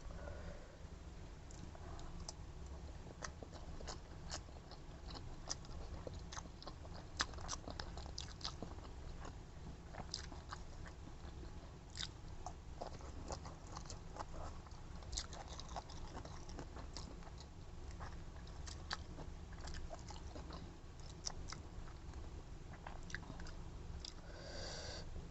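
Close-up eating: mouth chewing and biting on food, with many small irregular clicks and crunches, over a steady low hum. A brief pitched sound comes near the end.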